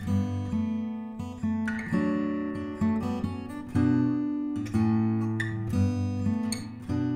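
Background music on acoustic guitar: notes and chords plucked and left to ring, a new one every half second to a second.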